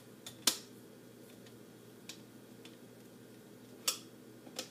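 Irregular sharp plastic clicks from an OXO Good Grips pineapple corer as it is set on and worked into a pineapple, about five in all, the loudest about half a second in and another strong one near four seconds.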